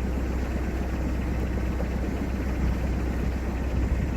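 Narrowboat's diesel engine running steadily, a constant low drone with no change in speed.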